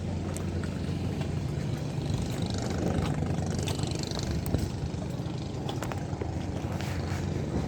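A motor engine running steadily nearby, a continuous low hum, with a few faint clicks over it.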